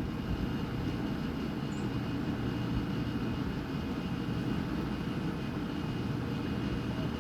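Steady low rumble of background noise, even in level throughout, with a faint high chirp about two seconds in.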